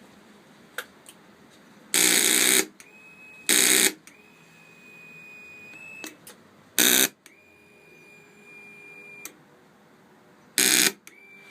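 Honda 919 starter solenoid buzzing in four short bursts, each under a second, spaced a few seconds apart. A faint steady high whine and a few small clicks come between the bursts.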